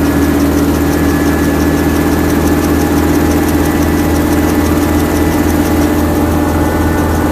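Small helicopter's engine and rotor running steadily on the ground, heard from inside the cabin: a constant low drone with a steady whine over it and a fast, even beat.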